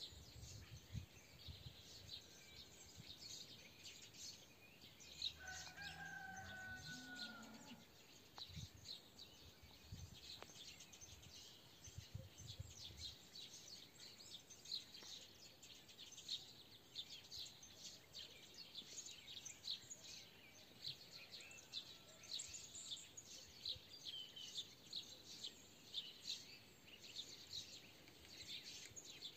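Faint songbirds chirping constantly, with a rooster crowing once, lasting about two seconds, beginning about five seconds in.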